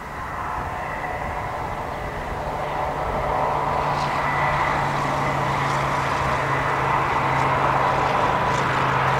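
Distant DB class 218 diesel-hydraulic locomotive running as it approaches with its train, a steady low engine hum with a high whine above it, growing louder.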